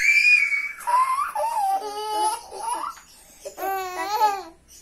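A toddler girl's high-pitched laughter: a rising squeal that holds at the start, then short giggles, and another run of laughter about three and a half seconds in.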